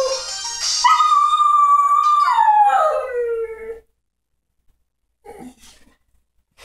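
Shetland sheepdog howling: the tail of one howl falls away, then a second howl is held on one high pitch for over a second before sliding down and fading out about four seconds in.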